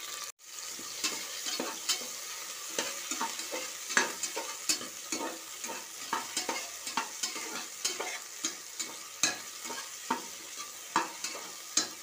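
Tomato slices and fried onions sizzling in hot oil and ghee in a pressure cooker, with a metal spatula scraping and tapping against the pan at irregular intervals as they are stirred.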